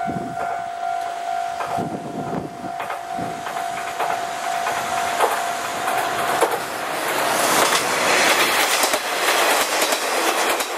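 Kanto Railway KiHa 2400 and KiHa 2300 diesel railcars approaching and passing close by. Their running noise builds to its loudest near the end as the cars go past, with repeated wheel clicks over the rail joints. A steady high whine sounds until about six seconds in.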